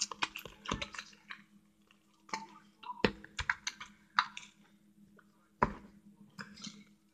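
Hands working freshly activated slime and handling its plastic containers: irregular sticky clicks and small crackles, with a few sharper knocks about three seconds in and again near six seconds.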